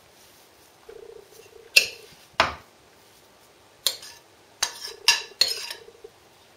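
A metal spoon knocking and scraping against a ceramic mixing bowl as shortbread dough is scraped out into a baking tin: sharp clinks, two about two seconds in and four more in the second half.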